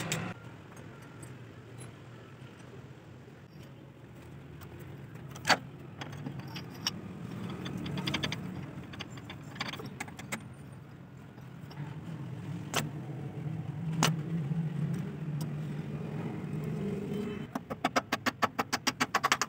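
Metal clinks and taps of hand tools on the shaft and housing of a Massey Ferguson 135 tractor's opened rear transmission, over a low steady hum. One sharp clink comes about five and a half seconds in, and near the end a quick run of even taps, about five or six a second.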